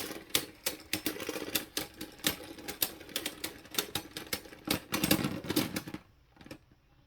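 Spinning Beyblade Burst tops clashing and rattling against each other and the plastic stadium wall in a dense, irregular clatter of sharp clicks. The clatter stops about six seconds in.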